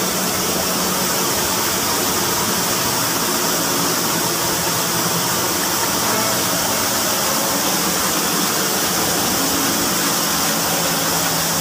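Water spraying under mains pressure from a float valve inlet into a cistern tank as it fills: a steady, even hiss and rush, with a faint low hum underneath.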